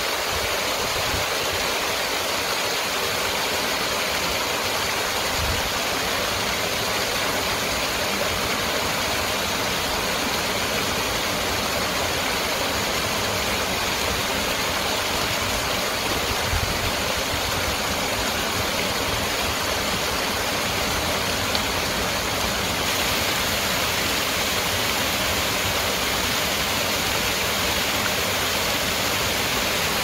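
Water pouring over a small rocky cascade into a stream pool: a steady, unbroken rushing splash, turning slightly brighter about three quarters of the way through.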